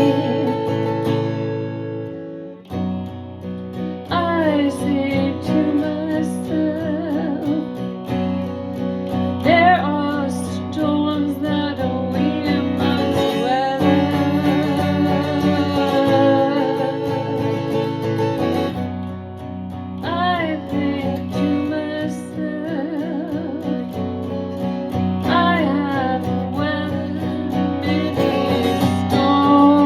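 A woman singing long, wavering held notes over strummed acoustic guitar.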